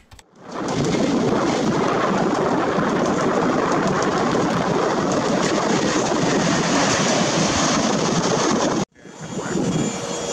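Steady roar of a jet airliner in flight, coming in over about half a second and then holding even. It cuts off suddenly near the end, giving way to quieter ambience with a faint steady hum.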